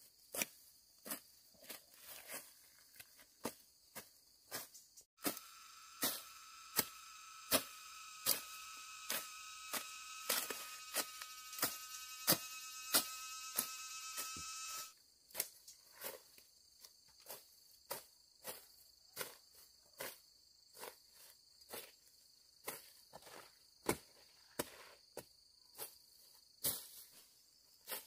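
Insects buzzing steadily in the high range, with a louder, pitched insect buzz that joins about five seconds in and cuts off sharply about ten seconds later. Under them run regular sharp knocks, about one and a half a second.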